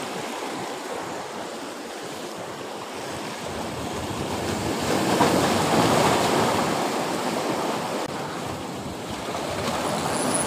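Choppy sea waves washing against a breakwater: a steady rushing wash that swells into a bigger surge about halfway through, then eases off.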